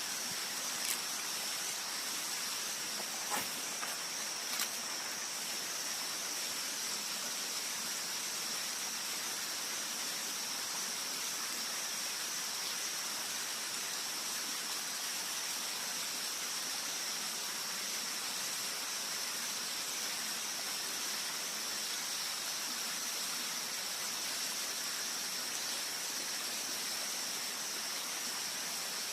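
Steady rushing of a hill stream's flowing water, an even hiss with a steady high-pitched note over it and a few faint clicks in the first five seconds.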